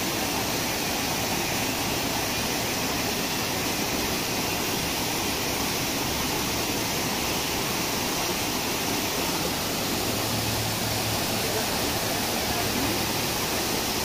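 Waterfall crashing into a shallow rock pool: a steady, unbroken rush of falling water.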